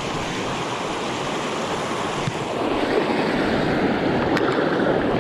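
Small mountain creek rushing steadily, running high with spring snowmelt runoff; it grows louder about halfway through.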